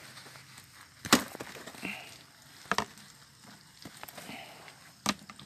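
Light rustling with three sharp cracks, the loudest about a second in, as someone walks through an asparagus bed brushing past the ferns.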